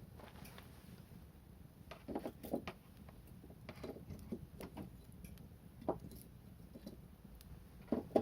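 Wood fire crackling: irregular sharp pops and snaps over a low steady background, a few louder snaps among softer ticks.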